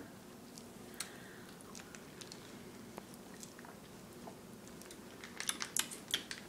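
Faint mouth sounds of someone eating a Go-Gurt squeezable yogurt tube: a few scattered small clicks, then a quick run of wet smacks and clicks near the end.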